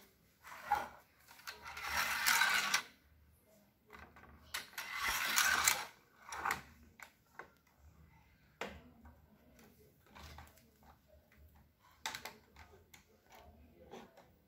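Hard plastic toy parts handled on a tabletop: scattered clicks and knocks, with two longer noisy stretches of about a second each, around two and five seconds in.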